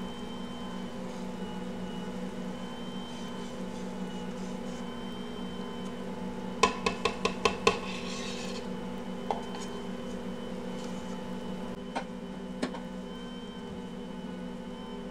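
Ankarsrum stand mixer running steadily as its dough hook kneads bread dough, a constant hum. About a third of the way in come six quick sharp taps of a glass measuring cup against the steel bowl, then a few single clicks later on.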